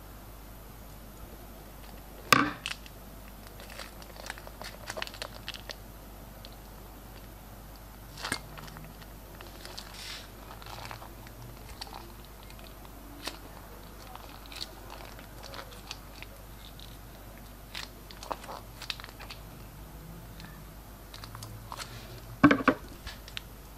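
Plastic crinkling and scattered small clicks from piping bags and slime being handled, with a sharp, louder crackle about two seconds in and a cluster of them near the end.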